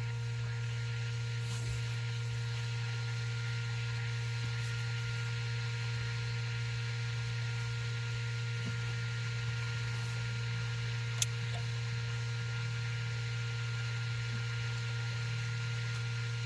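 A steady low hum with a few faint higher tones above it, unchanging throughout, and one faint click about eleven seconds in.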